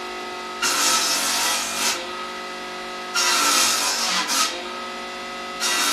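Circular saw running at speed with a steady whine, cutting into wood three times: two cuts of about a second and a half each, and a third starting near the end. Each cut comes in loud and harsh over the motor's hum.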